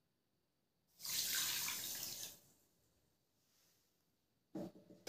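A cup of water poured onto a heap of sugar in a steel kadhai, a splashing pour lasting about a second and a half.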